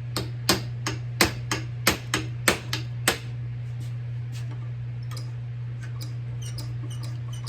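A quick run of about ten light metal taps and clicks, roughly three a second, as a tapered pin is worked into a cast-iron drill press feed mechanism, then only a few faint ticks. A steady low hum runs underneath.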